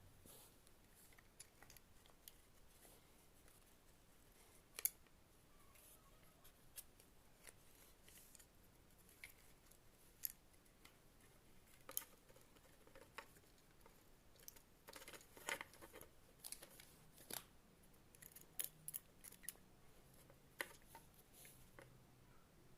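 Near silence broken by scattered faint clicks and light taps of small hard parts being handled, a few of them sharper, around five seconds in and again in the second half.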